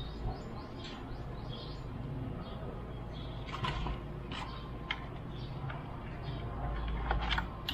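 Scattered clicks and crinkles from handling an EPO foam RC airplane fuselage and its wires, over a steady low background rumble.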